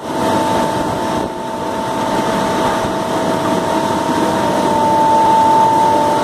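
Cashew inspection conveyor belts running: a steady mechanical noise with a constant high whine that grows a little louder about five seconds in.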